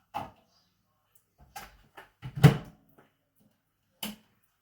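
A few separate knocks and clicks from handling a plastic microwave egg poacher and the microwave, the loudest a low thump about halfway through.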